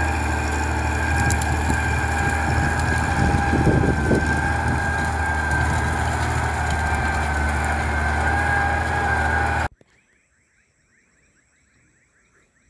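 Valtra 1780 tractor's diesel engine running steadily under load while pulling a plough, with a steady whine over the engine's low drone. It cuts off abruptly about ten seconds in, leaving near silence with faint chirping.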